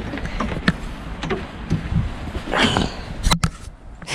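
Scattered knocks, clicks and rustling from someone handling gear on a sailboat's deck, over a low rumble.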